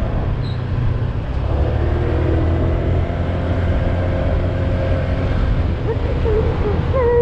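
Motorcycle ride heard from a helmet-mounted GoPro Hero 7 fitted with a wind-muffler jacket: a steady low rumble of wind and motorcycle engine with road noise. A short wavering tone comes near the end.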